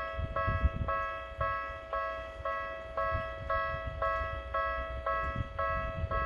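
Japanese level crossing warning bell ringing steadily, about two strikes a second. Wind buffets the microphone underneath.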